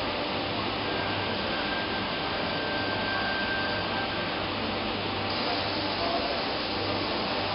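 ORTIS robotic carving cell milling an orthopaedic model: the cutting spindle on the robot arm runs with a steady whirring noise over a low hum, with a faint high whine through the first half.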